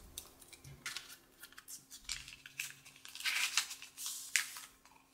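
Sealed paper-and-plastic test-card pouch being torn open along its edge and handled, then the card slid out: a run of short crinkling, tearing rustles, louder past the middle.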